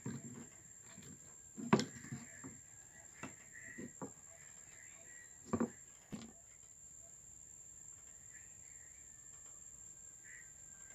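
Handling noise from a carnaúba-stalk toy guitar while its wooden tuning pegs and strings are worked: about five short knocks and clicks in the first six seconds, then quieter, with faint chirping in the background.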